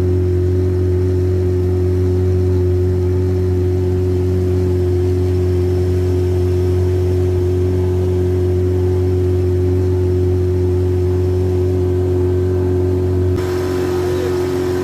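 Outboard motor of a small boat running at a steady cruising speed, a constant, even drone; the sound turns a little brighter near the end.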